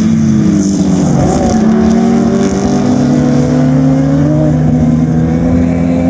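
Formula Junior racing cars' engines at racing speed passing close by. The pitch dips just after the start, then climbs steadily for a few seconds as they accelerate, and holds near the end.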